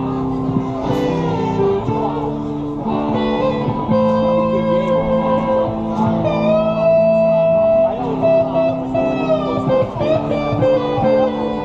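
Live rock band playing an instrumental intro: a lead electric guitar bending notes over held chords, with bass and drums.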